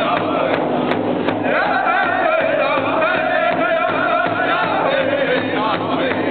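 Powwow drum group singing together in unison, struck on a large hide-covered powwow drum with padded beaters. About a second and a half in, the voices hold a long note that slides slowly down.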